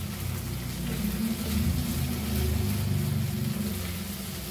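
Oyster chilli fry sizzling in a non-stick kadai as it is stirred with a silicone spatula, under a low rumble that swells in the middle and is the loudest part.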